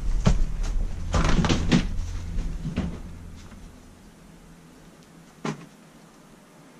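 Knocks, clatter and rustling of junk being handled and shifted through by hand, over a low rumble, fading after about three seconds; one sharp click about five and a half seconds in.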